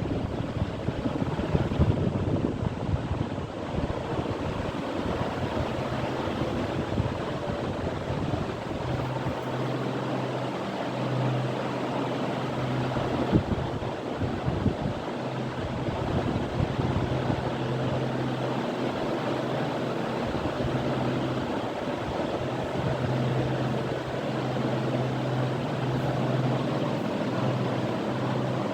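Old ceiling fan running: a steady rush of moving air, with a low motor hum that swells and fades every few seconds.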